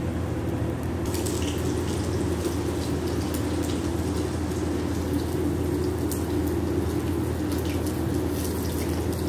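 Pancake batter sizzling in a non-stick frying pan: faint crackling pops from about a second in, over a steady low hum.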